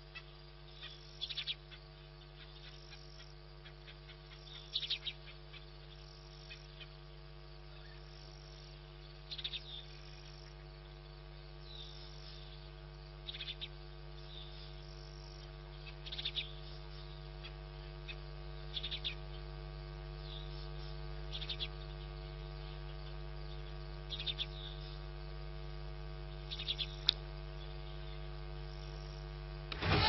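Steady electrical hum from the wildlife camera's open microphone, slowly getting louder, with a short high bird call about every two to three seconds.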